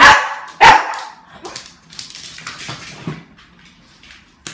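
Shih tzu puppy giving two short, loud barks in quick succession about two-thirds of a second apart, then only faint scattered noises.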